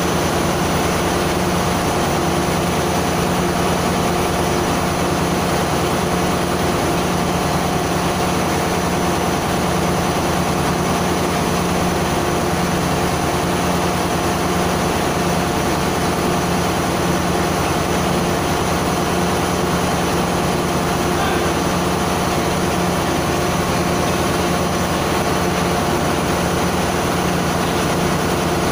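Steady drone of running engine-room machinery aboard a ship: a constant low hum with a few steady tones over it, unchanging throughout.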